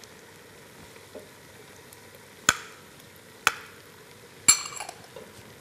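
Pasta sautéing in butter in a pan with a faint sizzle while it is stirred, and the metal stirring utensil knocks against the pan three times about a second apart, each knock ringing briefly, the last with a short clatter.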